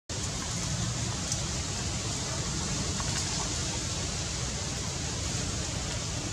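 Steady, even rushing noise with a couple of faint clicks about one and three seconds in.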